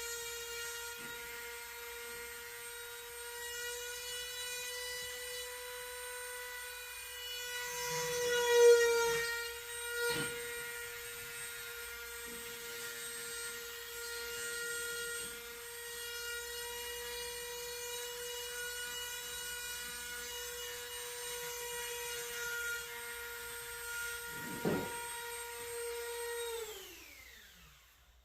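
Small high-speed electric power tool running at a steady whine, with a few knocks and a brief bog around nine seconds in, then spinning down to a stop near the end.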